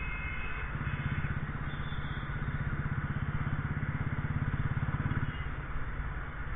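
Motorcycle engine running on the move, with a fast, even beat of firing pulses; the engine note drops off about five seconds in as the throttle eases. A steady high-pitched tone sounds at the start and stops within the first second.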